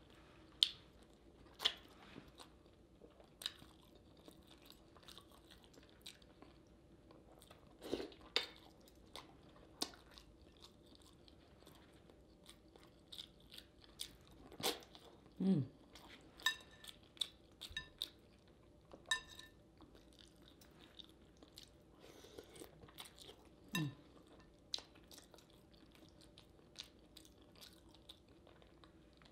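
Close-miked eating of a saucy seafood boil: wet chewing, biting and lip smacking with many scattered sharp clicks. Two short low sounds slide down in pitch, one about halfway through and one near the end.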